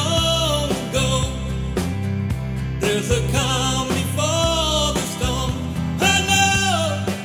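A man singing a country-rock song in long, gliding held notes, in three phrases with short breaks between them, over instrumental accompaniment with a steady low bass line.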